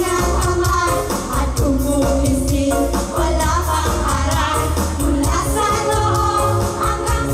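Live pop music played loud through a stage PA system, with women singing into microphones over a steady, heavy bass beat.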